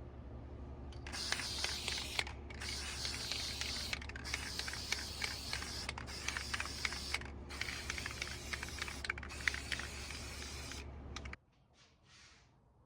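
Plastic-bristled brush scrubbing metal drawer handles, a dense scratchy, clicking scrub broken by several short pauses between strokes. It stops abruptly about 11 seconds in.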